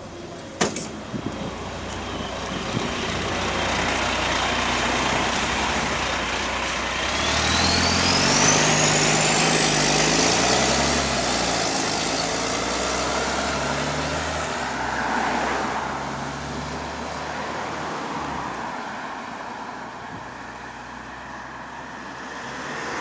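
Diesel engine of a Volvo B9TL double-decker bus that has an exhaust leak, pulling away and accelerating, heard on board. The engine note rises and drops with the gear changes, and a high whine climbs steadily partway through. A sharp knock comes just under a second in.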